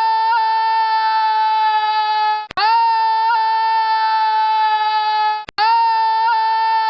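A steady, held musical note sounding as the same few-second sample three times over, cutting off and restarting about every three seconds, like a looped sound effect.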